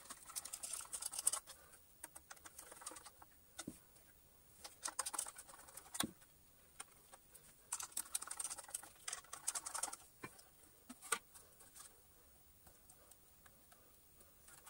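Two small screws being driven by hand with a screwdriver into the plastic gearbox and motor assembly of a Gtech AirRam cordless vacuum. The sound is quiet, light rapid clicking that comes in several short bursts with pauses between them, plus a couple of single sharp knocks.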